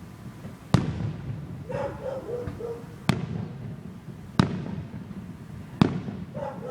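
Aerial firework shells bursting: four sharp bangs at uneven intervals, each trailing off in a rumbling echo.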